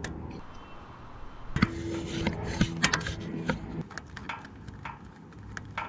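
Small metallic clicks and clinks as a nut and ring terminals are handled and threaded by hand onto the earth post of a winch motor, over a low steady hum.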